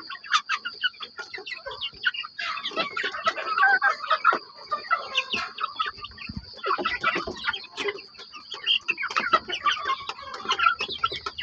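Chickens clucking busily, a dense run of short calls and sharp taps, over a steady high-pitched hum.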